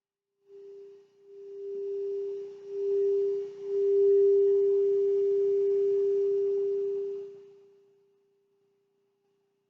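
Blue singing bowl sounding the note G: one steady ringing tone that swells up in three waves, holds, then fades away near the end.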